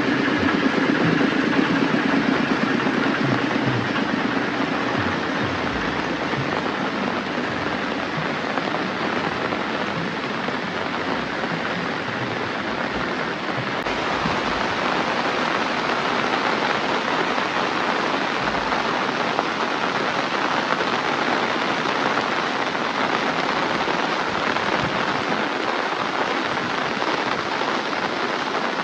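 Heavy rain falling steadily, an even dense hiss. A low hum fades out over the first few seconds.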